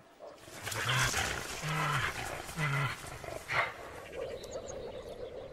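Brown bears growling and roaring in a string of short, harsh calls over the first three seconds or so, with a last rasping burst a little later: a female driving off a courting male.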